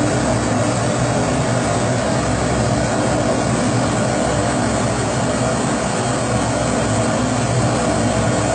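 Kerosene pressure stove (Primus-type 'babour') burner burning at full flame: a continuous, even rushing noise with a low steady hum underneath.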